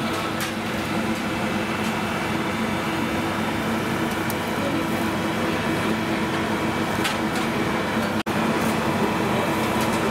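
Steady rushing hum of ventilation at a charcoal skewer grill, broken by a brief dropout a little past eight seconds.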